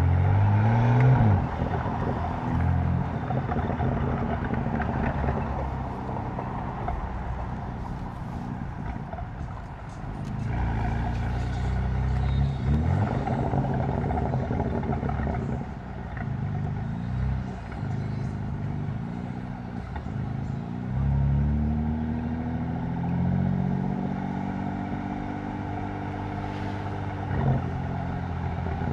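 BMW M4's tuned twin-turbo inline-six engine pulling through the gears several times, its note climbing under acceleration and dropping between shifts and off the throttle, heard from inside the car.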